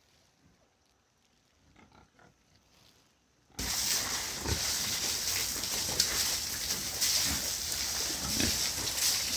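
Near silence for about three and a half seconds, then an abrupt cut to a loud, dense din of pigs grunting and squealing.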